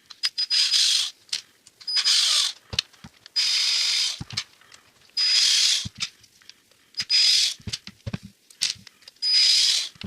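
Cordless drill-driver run in six short bursts, each about half a second with a high whine at the start, with small clicks and knocks between them: it is backing out the screws that hold an angle grinder's gearbox head.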